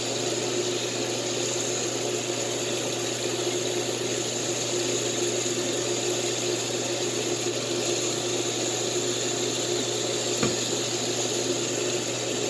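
Water running steadily from a bathtub tap while a dog is being bathed, with a steady hum underneath and a single click about ten seconds in.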